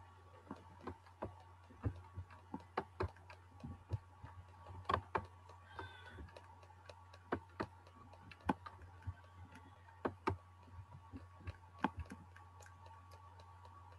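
Irregular clicks and taps at a computer, from mouse buttons and keys, a few a second, over a steady low hum.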